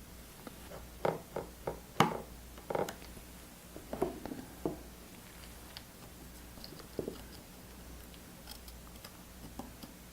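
Light clicks and taps of tiny screws, metal shield plates and a precision screwdriver being handled on a work surface during phone reassembly. They come in small clusters, with the sharpest click about two seconds in.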